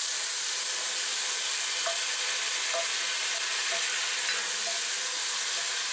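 Chopped onion and ginger-garlic paste sizzling steadily in hot vegetable oil in an enamelled pot, being stirred with a wooden spatula.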